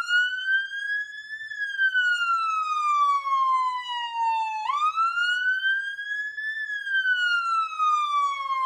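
Ambulance siren on a slow wail: the pitch climbs, then falls slowly over about three seconds, and jumps quickly back up to start again about four and a half seconds in.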